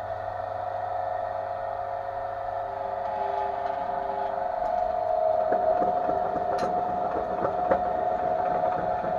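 Homemade belt-driven jaw crusher running under its electric motor, a steady whine with a low hum beneath it. From a little past halfway, irregular knocks and clatter join in.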